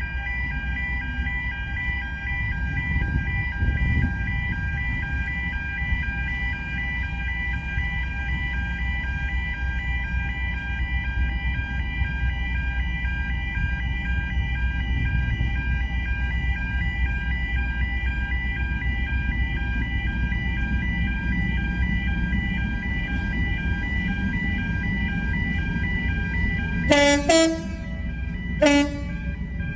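A level crossing warning alarm sounds steadily in an even pulsing tone over the low rumble of a diesel freight locomotive. Near the end the locomotive's horn gives two short blasts.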